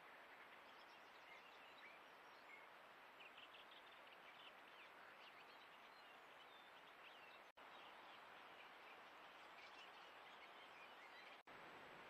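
Faint, steady hiss of a trail camera's microphone with small birds chirping faintly in the background, broken by two momentary dropouts where the recording cuts.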